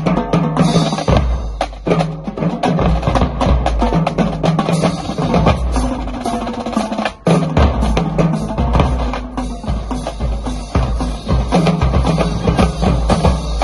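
Marching drumline playing a cadence: rapid snare drum strokes and rolls, tenor drums, and pitched bass drums stepping between notes, with cymbal crashes. The playing breaks off briefly about seven seconds in, then carries on.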